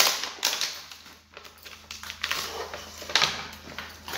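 Paper and plastic packaging being handled and pulled apart, crinkling and rustling in a string of short bursts.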